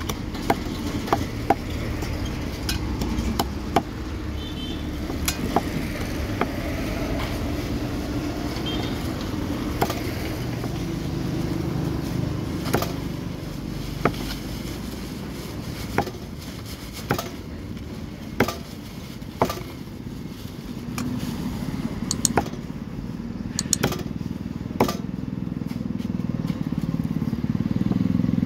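A heavy cleaver chopping rohu fish on a wooden log chopping block: sharp single chops, irregularly every second or two. Underneath is a steady low rumble of motor traffic, which grows louder near the end.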